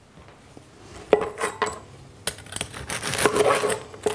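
A knife trimming the edges of an oven-baked spring roll on a wooden chopping board: two sharp taps about a second in, then a run of crackling, scraping cuts through the crisp baked wrapper.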